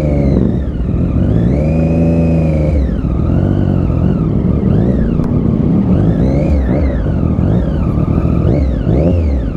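Triumph Daytona 675 inline-three engine being ridden, its pitch rising and falling several times as the throttle is opened and eased off.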